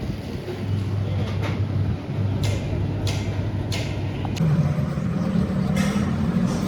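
Steady low hum of a workshop machine motor, with three short sharp clinks about half a second apart midway. The hum's pitch shifts about two-thirds of the way through.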